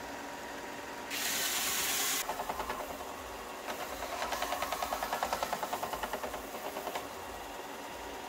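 WEN 4-by-36-inch belt and disc sander running with a steady motor hum. About a second in, a wooden block pressed onto the belt gives a loud hissing grind for about a second. From about halfway in until near the end the grinding comes back as a pulsing rasp, about six pulses a second.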